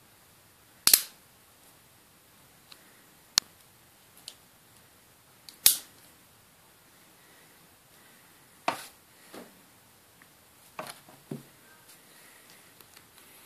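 Small disc magnets snapping against each other in a stack: a handful of sharp metallic clicks a few seconds apart, the loudest about a second in and again near the middle.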